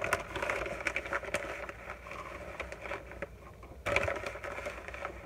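Crinkling and rustling of a plastic bag of flaked coconut being handled and shaken out into a measuring cup, with many small clicks and taps. There is a louder rustle about four seconds in.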